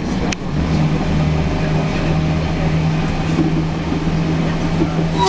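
Diesel railcar on a narrow-gauge line running steadily, a low engine and rail drone heard from the driver's cab, with a sharp click just after the start. A short horn toot sounds right at the end as the train enters a tunnel.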